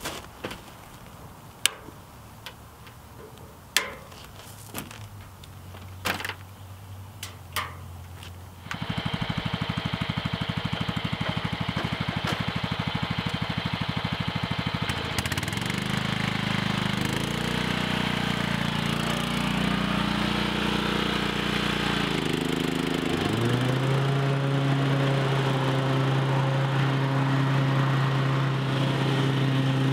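A few sharp clicks, then a walk-behind lawn mower's engine comes in suddenly about nine seconds in and runs. It speeds up in steps over several seconds and then holds a steady higher pitch.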